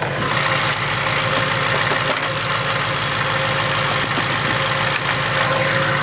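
Supercharged 2019 Ford Mustang GT's 5.0 L V8 idling steadily, heard close up in the open engine bay. It idles evenly despite a P0300 random multiple-cylinder misfire code.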